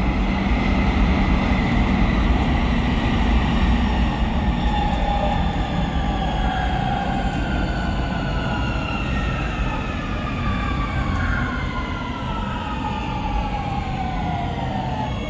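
Siemens Inspiro metro train running into a station: its electric traction motors whine in several tones that fall slowly in pitch as the train brakes, over a steady low rumble of wheels and running gear.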